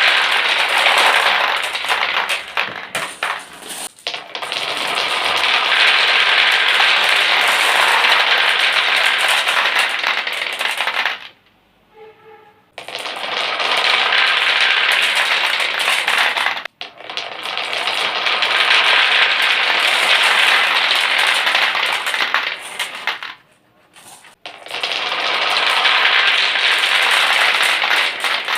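Many marbles clattering and rattling down a marble run in a dense, continuous stream of clicks, in waves of several seconds broken by brief lulls. A faint ringing note sounds in one lull about twelve seconds in.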